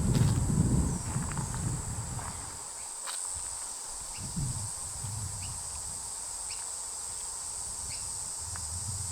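Insects chirring: a steady high-pitched buzz with short chirps repeating about once a second. A low rumble in the first couple of seconds fades out.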